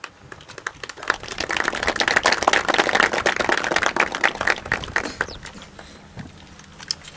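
A crowd applauding: many hands clapping, swelling about a second in and dying away after about five seconds.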